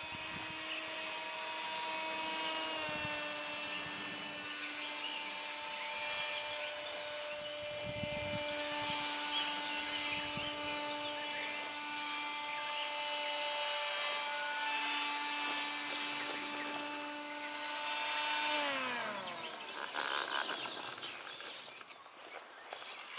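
Motor and propeller of a radio-controlled paramotor running steadily in flight with an even buzzing tone. The pitch steps slightly lower about three seconds in, and well into the second half the motor winds down with a falling pitch as it is throttled back.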